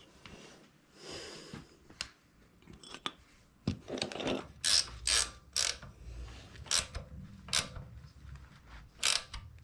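Socket ratchet wrench being worked to run down a nut, with a series of short, irregular ratcheting strokes from about four seconds in.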